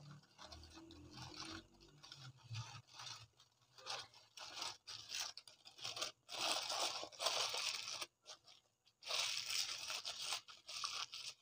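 Butter paper crinkling and rustling as it is rolled tightly around a paratha roll and its end twisted shut, in irregular crackly bursts with short pauses, busiest in the middle and again near the end.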